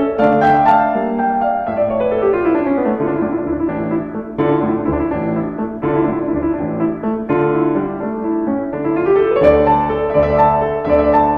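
Background piano music: a run of notes falling about two seconds in, and another rising near the end.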